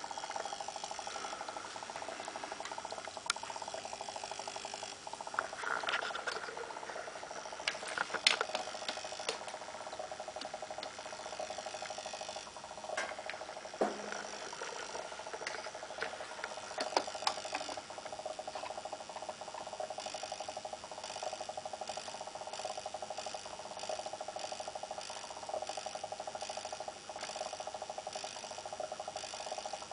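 HHO electrolysis cell running with a steady mid-pitched tone and scattered crackles and clicks from gas bubbling off the plates. The builder suspects the odd tone is a resonance in the cell.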